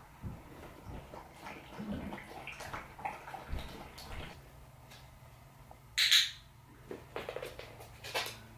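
A puppy making short sounds, the loudest a brief sharp hiss about six seconds in and a smaller one near the end, with faint scattered rustles and ticks in between.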